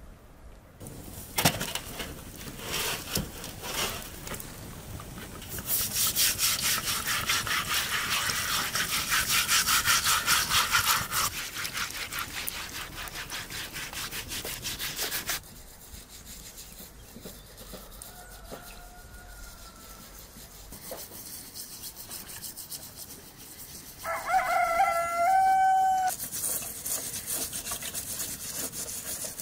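Rhythmic scraping and rubbing as a singed cow's head is scrubbed clean in a metal basin of water, loudest from about six to fifteen seconds in. A rooster crows near the end.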